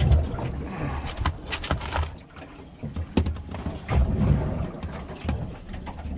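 Scattered clicks and knocks of a fish being handled and unhooked with pliers on a boat's deck mat, over a low uneven rumble.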